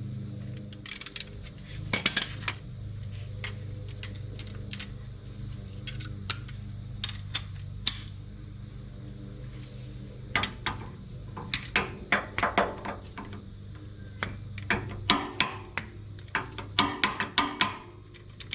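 Metal hand tools clinking and rattling as a socket and wrench work a differential plug. Irregular sharp clicks come in clusters that grow busier about halfway through.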